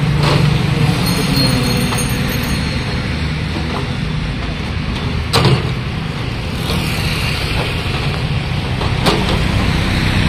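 Steady low vehicle engine and traffic rumble on a highway roadside, with two sharp knocks about five seconds in and about nine seconds in as crates are stacked onto the loaded truck.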